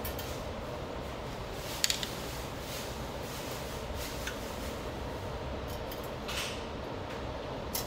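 Metal skewers clicking against a stainless-steel charcoal grill as they are set into its slots: a few light clicks, the sharpest about two seconds in, over a steady low hum.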